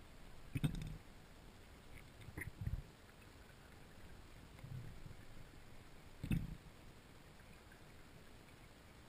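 Muffled underwater sound heard through a submerged camera: a faint steady hiss broken by a few short, low knocks and rumbles, the two sharpest about half a second in and about six seconds in.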